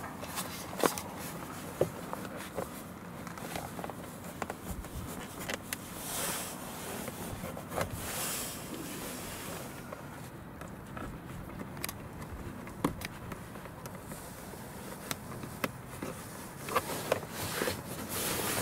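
Hands working a thin cable into the seams of plastic interior trim panels under a car's dashboard: scattered light clicks and scrapes of plastic, with a few longer rustles.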